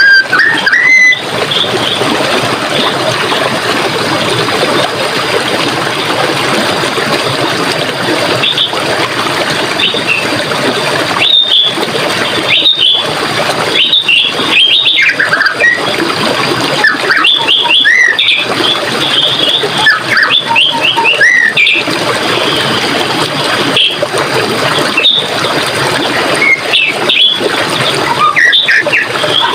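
Running water rushing steadily, with birds chirping and calling over it, the calls coming thickest in the middle stretch.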